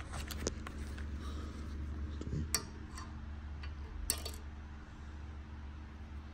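A few light metallic clicks and clinks, with a cluster about four seconds in, as a magnet pick-up tool fishes the valve keepers out from under a compressed valve spring on a Hemi cylinder head. A steady low hum runs underneath.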